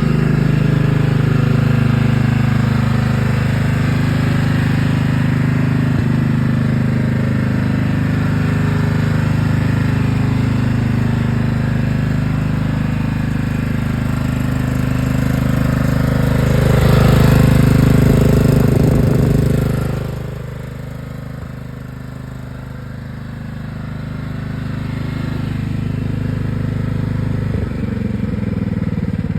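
Riding lawn mower's 14 horsepower engine running steadily. It grows louder a little past halfway, drops off suddenly, then slowly builds again toward the end.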